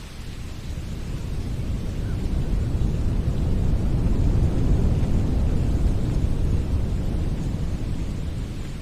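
Wind blowing, a low rumbling rush that swells to a gust about halfway through and then eases off.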